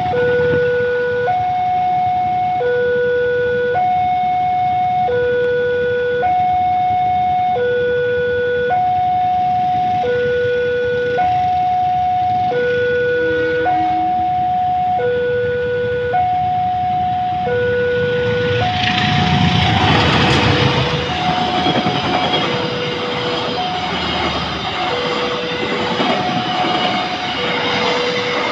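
Railway level-crossing warning alarm sounding two alternating tones, low then high, each held a little over a second, in a steady repeating cycle. About two-thirds of the way in, the rumbling noise of a passing passenger train rises over it and carries on to the end, with the alarm still faintly heard.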